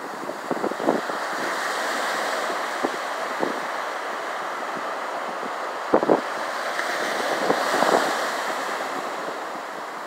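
Ocean surf washing up a sandy beach, swelling about two seconds in and again near the end, with wind buffeting the microphone in short gusts.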